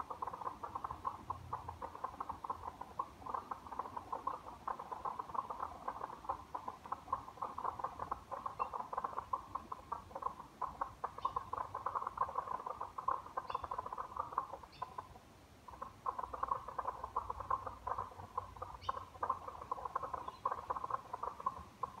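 Chorus of frogs calling, a dense stream of rapid clicking notes that keeps up with only a short lull about fifteen seconds in.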